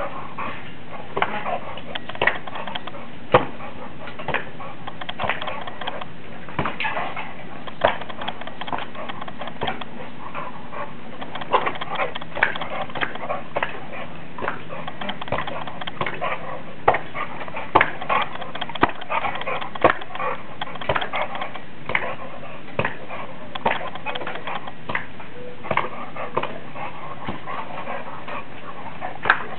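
An Olde English Bulldogge playing tetherball. Dog sounds mix with irregular sharp knocks and clicks over a steady background hiss.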